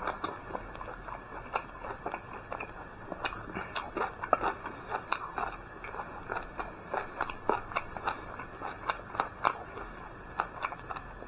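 Close-miked chewing and biting: a person eating steamed buns with raw chili peppers, making irregular wet clicks and small crunches a few times a second.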